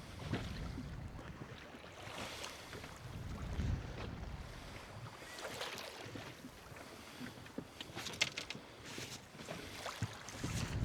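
Wind buffeting the microphone and water slapping against a small boat's hull, in uneven low swells, with a few sharp light knocks about eight and nine seconds in.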